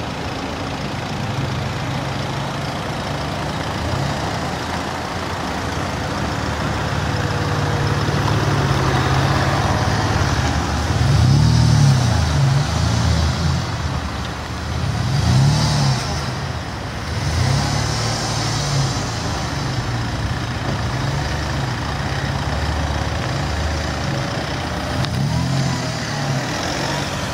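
Alfa Romeo 156 engine running steadily, revved up and let fall back a few times.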